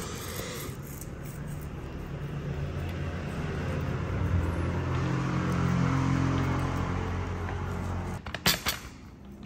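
A steady machine hum with a low drone, swelling slightly, that stops suddenly about eight seconds in. A few short knocks follow.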